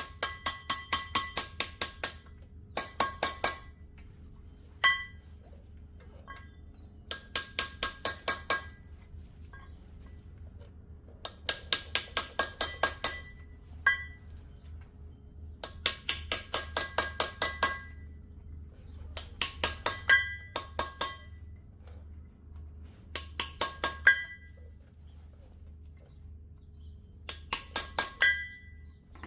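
Repeated quick bursts of light metal-on-metal taps, each strike ringing, about nine runs of several rapid blows each: a pry bar being tapped around the edge of a truck's rear hub seal to work it loose.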